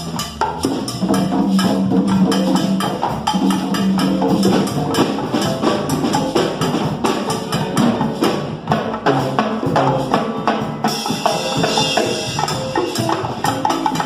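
Salsa music with busy hand percussion over a steady beat and held low notes; a bright, hissing percussion layer joins about eleven seconds in.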